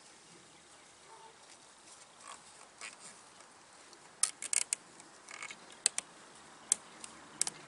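A plastic zip tie being cinched to hold a queen cage onto a wooden hive frame: a scatter of sharp clicks in uneven clusters in the second half, over a faint background hum of honey bees.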